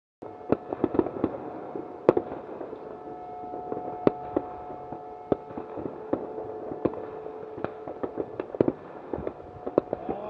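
New Year's Eve fireworks and firecrackers going off all around: an irregular stream of sharp bangs and pops over a steady crackling din, with a held tone in the background through the middle.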